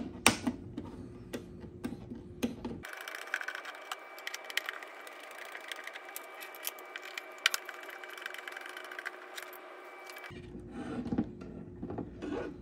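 Light irregular clicks and scrapes of a hand Torx driver working the T25 bolts out of a motorcycle headlight carriage. Louder handling knocks come near the end as the headlight assembly is worked loose.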